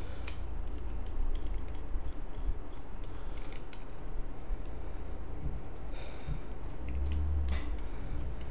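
Scattered light clicks and scrapes of a mini precision screwdriver turning out the tiny screws that hold a solid-state drive's circuit board.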